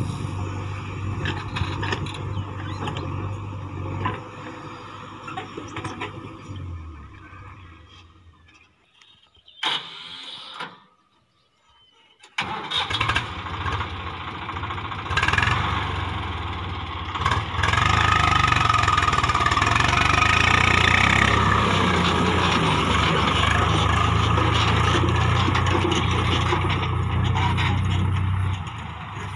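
JCB 3DX backhoe loader's diesel engine running steadily while the bucket dumps soil, fading to near quiet for a few seconds. About twelve seconds in, a Swaraj 744 FE tractor's three-cylinder diesel engine comes in and runs loud and steady under load as it pulls a fully loaded trailer away.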